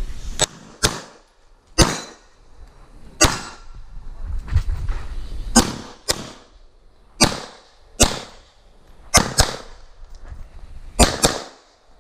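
CZ P-10 C pistol fired through a practical-shooting stage: about a dozen shots at uneven intervals, several in quick pairs (double taps on targets), each with a short echo.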